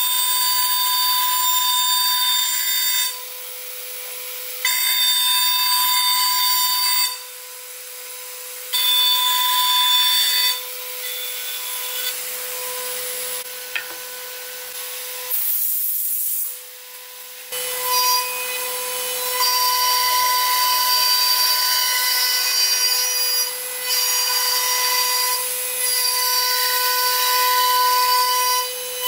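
CNC router spindle whining at a steady high pitch while its bit routes a groove into a wooden board. The cutting noise comes and goes in stretches of a few seconds, dropping off briefly several times.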